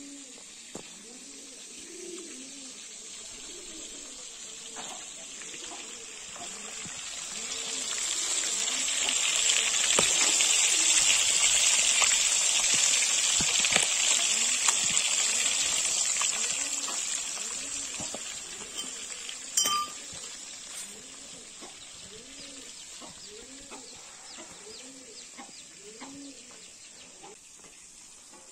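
Fish pieces sizzling as they fry in hot oil in a metal kadai, the sizzle swelling loud in the middle and fading again, with one metallic clink about two-thirds of the way in. Pigeons coo repeatedly throughout.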